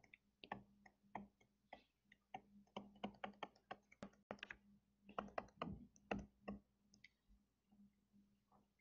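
Faint, irregular taps and clicks of a stylus tip on a tablet during handwriting, several a second in short runs, over a low steady hum.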